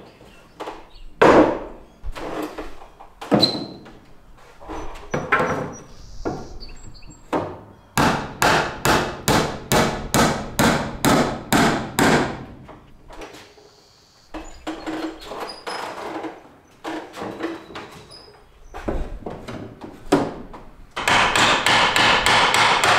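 A hammer nailing wooden slats to a wall: two runs of quick, even blows, about three or four a second, one near the middle and another starting near the end, with scattered knocks of boards being handled and tapped in between.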